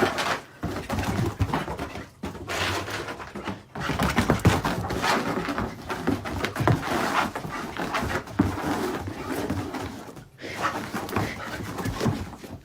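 A dog panting in a small room. The sound breaks off sharply a few times, as short clips change.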